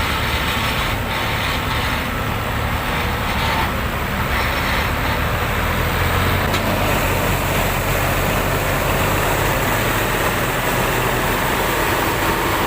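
An engine running steadily and loudly under load, with a dense, rough noise throughout.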